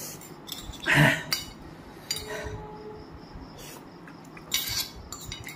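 Two metal forks clinking and scraping against a ceramic plate of noodles in scattered short clinks, with a louder short mouth noise about a second in and a cluster of louder clatter near the end.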